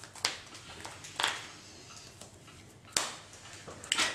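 Sleeved trading cards handled on a cloth playmat: four or five brief swishes and taps, about a second apart, as cards are picked up, slid and set down.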